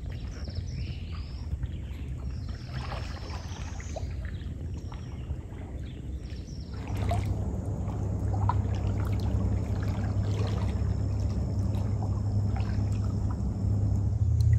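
Kayak paddle strokes dipping and dripping in still, flooded water. A low rumble comes in about halfway through and stays to the end.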